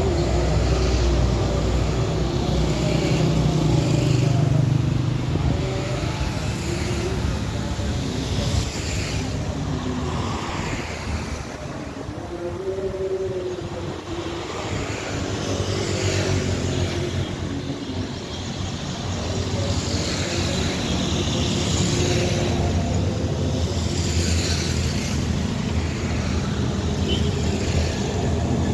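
Motor vehicle traffic running steadily: a low rumble with engine tones that drift up and down.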